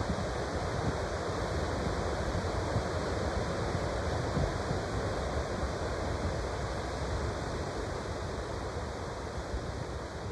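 Ocean surf breaking on a sandy beach, a steady wash of waves, with wind gusting on the microphone.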